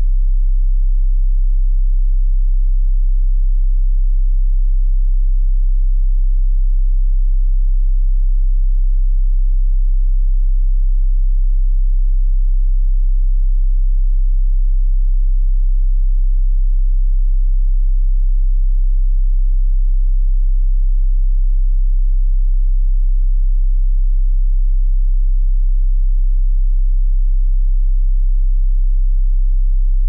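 A steady, unchanging pure sine tone pitched at low C (C1, about 32.7 Hz): a very deep, constant hum.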